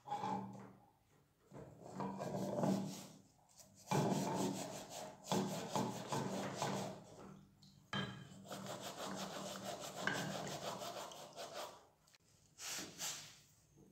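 Wet scrubbing: a sponge rubbing a corroded copper candlestick piece under water in a plastic tub. It comes in several bouts of rubbing with short pauses between them.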